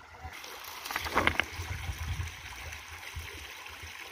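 Shallow river water trickling and splashing around people wading, with wind rumbling on the microphone. A short burst of splashing about a second in.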